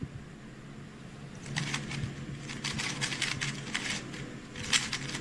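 Rapid plastic clicking and clacking of a speedcube's layers being turned very fast during a 3x3 Rubik's cube speedsolve, starting about a second and a half in, in quick irregular runs.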